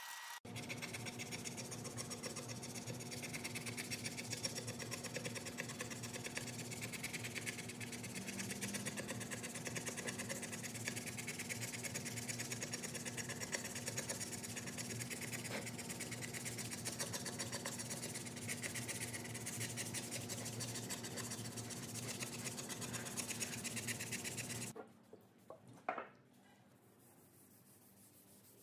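A scrub pad rubbed hard in quick back-and-forth strokes over a wet, foamy wooden desk top, a steady scratchy scrubbing. It stops abruptly near the end, leaving only faint sounds and a single sharp click.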